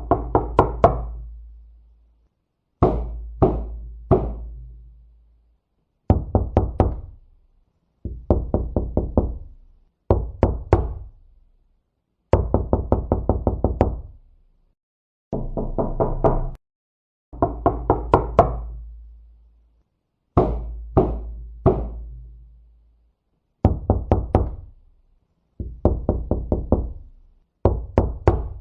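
Knocking on a door: bursts of several quick knocks, repeated about every two seconds with silence between, each burst ringing on with a low, hollow resonance.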